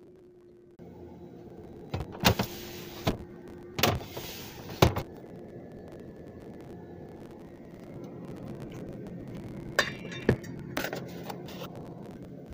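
Clicks, knocks and brief rustles of containers and packaging being handled inside a refrigerator, over a steady low refrigerator hum that starts about a second in.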